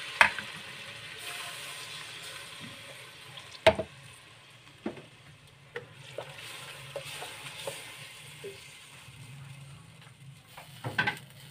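Coarsely ground onion masala paste sizzling as it fries in hot oil in a pressure cooker, the sizzle slowly dying down. A plastic spatula stirs it and knocks sharply against the pot several times.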